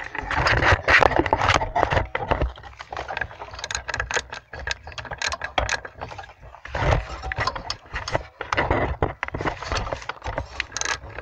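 Socket ratchet clicking in rapid runs as it is worked back and forth, tightening the mounting nuts of a new brake master cylinder, with brief pauses between runs.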